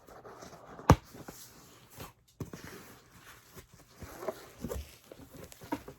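A large cardboard box being opened by hand: rustling and scraping of cardboard and packaging, with one sharp knock about a second in and a few lighter knocks later.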